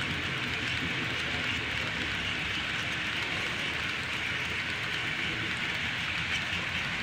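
Model train of hopper cars rolling past on the layout track: a steady, even rolling noise of small metal wheels on rail, with a low hum beneath.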